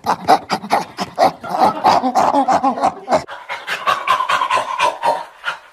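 Rapid, rhythmic panting, about five breaths a second, partly voiced.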